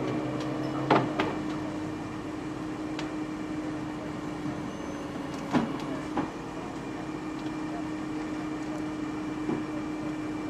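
A steady mechanical hum with a few sharp metallic clanks and knocks, the loudest about a second in and again past the middle.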